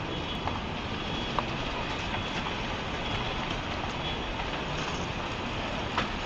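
Tsunami floodwater rushing through streets, a steady dense rushing noise with scattered knocks, cracks and brief squeals from cars and debris carried in the flow; the sharpest crack comes near the end.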